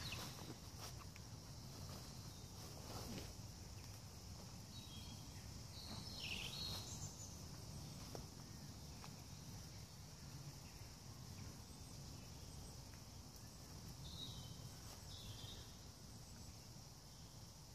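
Quiet woodland ambience: a faint steady hiss, with short bird calls about six seconds in and again near the end, and a few faint rustles and clicks from movement in dry leaves.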